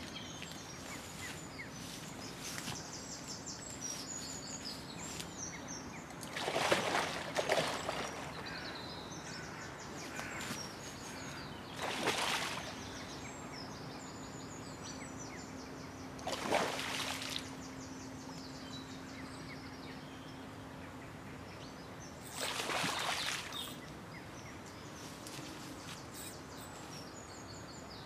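A hooked pike splashing at the surface in four short bursts, with small birds calling in the background and a faint steady low hum.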